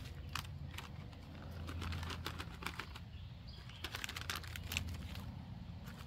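Crinkling and rustling of MRE pouch packaging being handled and mixed, a dense run of irregular crackles and clicks.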